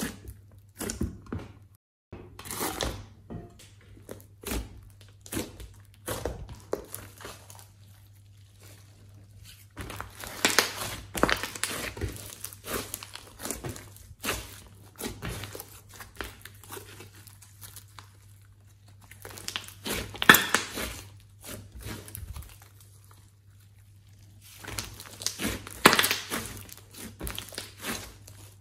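Hands squeezing, poking and stretching a large glossy slime, giving sticky squelches and crackling pops, with louder bursts of crackling about ten, twenty and twenty-six seconds in. A faint low hum runs underneath.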